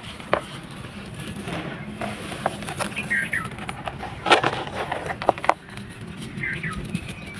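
Dry sand-cement balls crumbling in a tub: a handful of sharp, gritty crunches and cracks, scattered a second or so apart.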